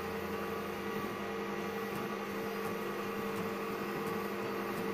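Metal lathe's electric motor and spindle running steadily, a constant hum with several steady tones, ready for boring the hole in an aluminium pulley.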